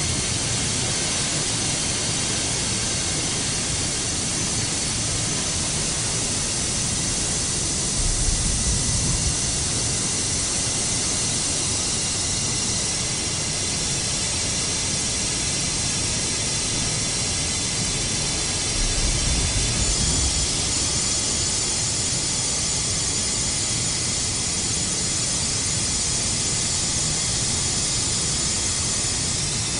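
Steady hiss and rumble of an industrial plant with steam venting, with faint steady high-pitched whines over it. Two brief low rumbles come through, about eight seconds in and again near twenty seconds.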